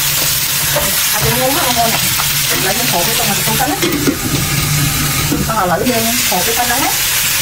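Horse crab pieces sizzling in hot oil in a wok while a spatula stirs and scrapes them round the pan. About four seconds in, a lid goes over the pan and the sizzle turns duller for a couple of seconds before it opens up again.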